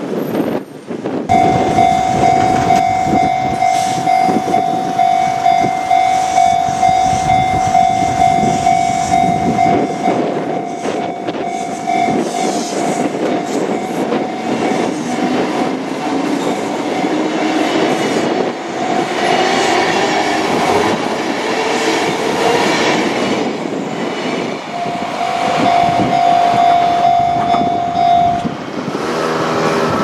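Kintetsu Minami Osaka Line commuter train passing over a level crossing, its wheels clattering over the rail joints. Its traction motors whine, rising in pitch through the middle as it picks up speed. The crossing's alarm sounds as a steady tone through the first half and again near the end.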